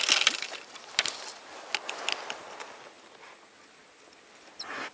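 Handling noise from a fishing rod and reel: a short rustle, then a handful of sharp clicks and taps over the next two seconds, growing fainter, and a brief rustle near the end.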